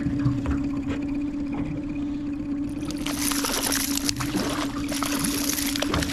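Water splashing beside a small fishing boat, louder from about halfway through, over a steady motor hum throughout.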